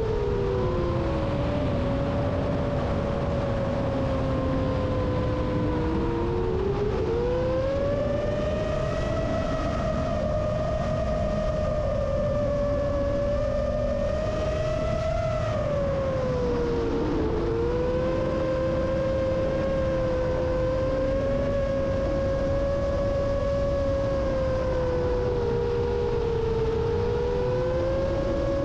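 Rajawali Fold 7 FPV quadcopter's brushless motors whining in flight: several tones gliding up and down against each other as the throttle changes, over a steady rush of wind. The pitch climbs about seven seconds in and drops back around sixteen seconds.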